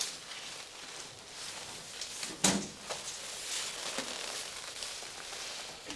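Faint rustling with one sharp knock about two and a half seconds in.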